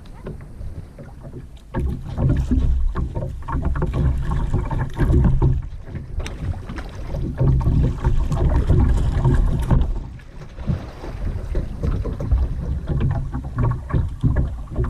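Kayak paddling on a river: paddle strokes dipping and splashing in the water, with low, gusty wind rumble on the microphone. Quieter for the first couple of seconds, then louder.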